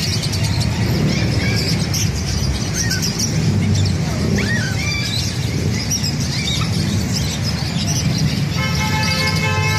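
Busy street-market ambience: a steady low traffic rumble with scattered short, high chirps and squeaks, and a held tone of several pitches for about a second near the end.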